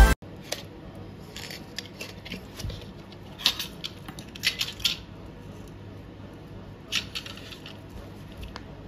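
Scattered light clicks, clinks and rustles of small items being handled, with crisp clusters about three and a half seconds in, around four and a half to five seconds, and near seven seconds.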